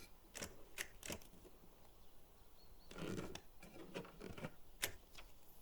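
Reel-to-reel tape recorder clicking and clunking mechanically: a string of separate sharp clicks, with a denser cluster about three seconds in.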